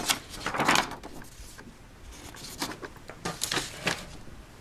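Paper instruction sheet rustling as it is handled, loudest in the first second, followed by a few brief, softer handling rustles.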